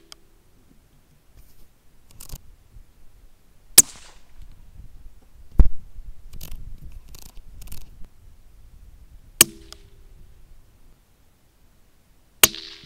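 Rifle shots at rabbits: four sharp cracks, about four, five and a half, nine and a half and twelve and a half seconds in. The last two are each followed by a brief low ringing tone, and fainter clicks fall between the shots.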